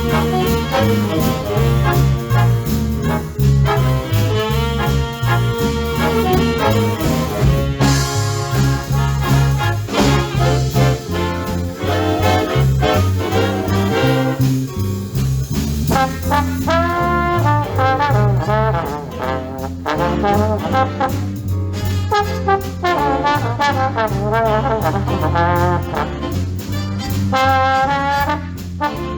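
Live big band playing swing: brass section with trombones and trumpets over a steady bass line on the beat. About halfway through, a single melody line with vibrato comes to the fore over the band.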